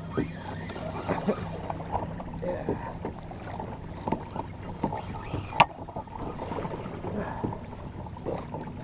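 Water slapping and knocking against the hull of a fishing kayak as a hooked shark tows it, over a steady low hum. One sharp knock comes about halfway through.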